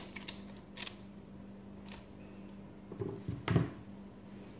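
A knife scoring proofed bread dough on a parchment-lined metal baking tray: a few light clicks, then a couple of dull knocks about three seconds in as the knife and tray are handled. A steady low hum runs underneath.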